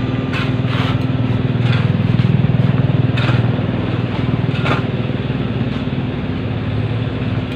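Steel shovels scraping and crunching into piles of gravel and sand, a stroke every second or so, over the steady low hum of an engine running, which swells a little about two seconds in.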